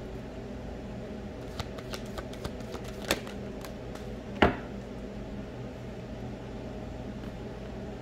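Steady mechanical hum in a small room, with several light clicks between about one and a half and four seconds in and one sharper tap with a brief ring about four and a half seconds in.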